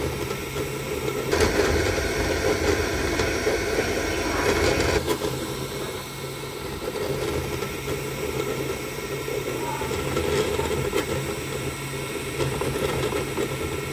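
Kidoodle MiniBox A1 kids' 3D printer running: a steady mechanical whir of its motors, louder from about one to five seconds in.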